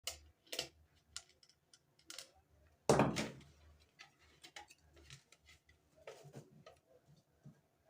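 Light clicks and taps of a plastic mixer grinder housing being handled and unscrewed with a screwdriver, with one louder scraping clatter about three seconds in.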